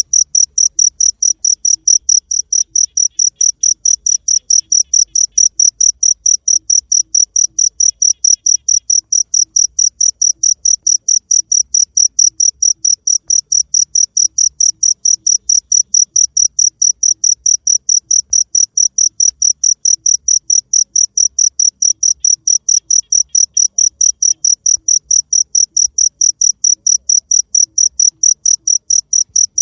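Cricket chirping steadily, a high-pitched chirp repeated evenly about four times a second.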